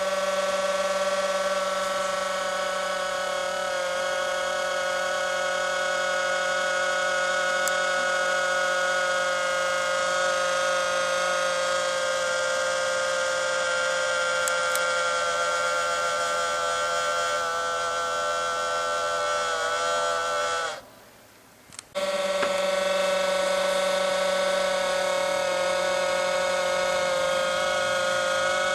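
Steady high-pitched mechanical whine with many overtones, the abnormal noise of some machine. Its pitch sags slightly, then it cuts out about 21 seconds in and starts again about a second later.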